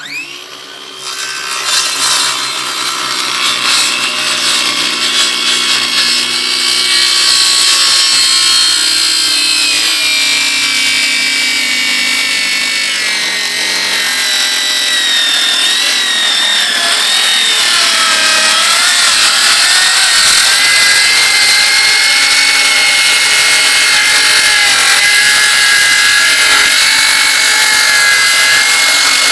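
A power tool running continuously under load, cutting or grinding, with a whine that wanders in pitch as the load changes. It starts abruptly out of silence and builds over the first several seconds.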